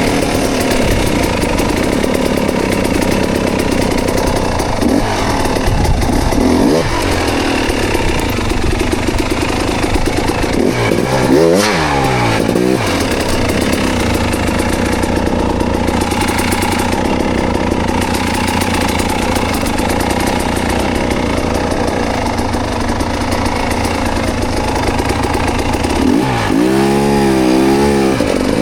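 Dirt bike engine running under load on a slow, rocky climb, the throttle worked on and off so the revs rise and fall, with two spells of sharp revving, one about halfway through and one near the end.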